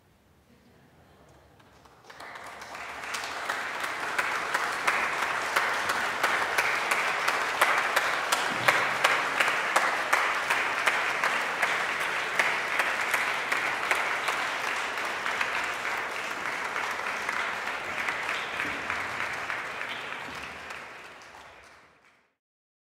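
Audience applauding: after a brief hush, clapping breaks out about two seconds in, swells quickly, holds steady, then fades out near the end.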